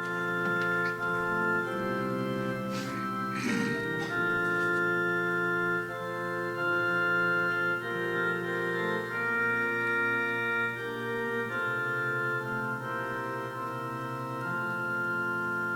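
Church organ playing the introduction to a hymn in held, sustained chords that change every second or two, with a brief rustling noise about three seconds in.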